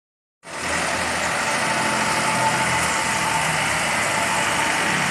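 Isuzu flatbed truck's engine idling steadily through an aftermarket jetbus-style exhaust, starting about half a second in.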